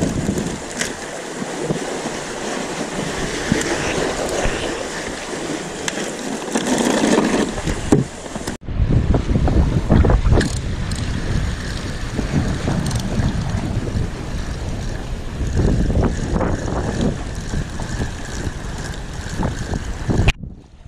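Gusty wind buffeting the microphone, with waves washing against the rocks of a seawall. The sound cuts out briefly about eight and a half seconds in, then the wind rumble continues stronger.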